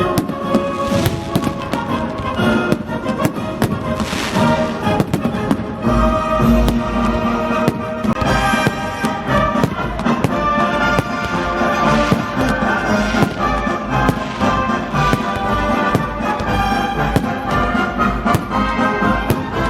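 Fireworks salute bursting and crackling, with frequent sharp pops, over loud military-song music with brass.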